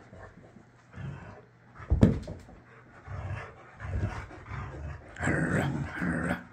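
Boxer dog grumbling during a tantrum, in short low bouts that build to a louder stretch near the end. A single thump comes about two seconds in.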